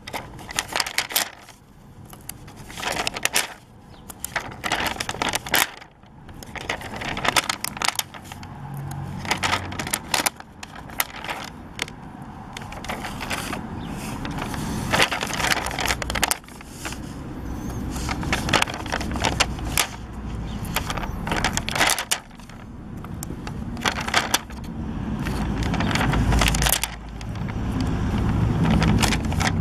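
Puffy stickers being peeled off their plastic backing sheet and pressed onto paper: crinkling, clicks and taps close by. In the second half these give way to longer swelling rustles as a hand presses and rubs over the paper.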